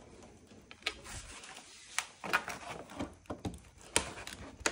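Hard plastic clicks and knocks, about seven sharp ones, as a honeycomb fog light grill is handled and pushed into its opening in a plastic car bumper.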